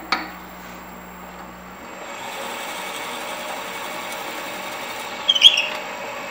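Wood lathe running while a small hand-held twist drill bit bores slowly into the end grain of a spinning alder blank. A steady cutting hiss grows louder about two seconds in, and a short, sharp, loud scrape comes a little after five seconds.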